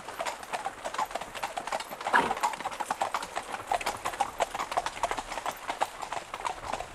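Hooves of several ridden horses clip-clopping as they cross a stone bridge and move on: a quick, irregular clatter of hoofbeats.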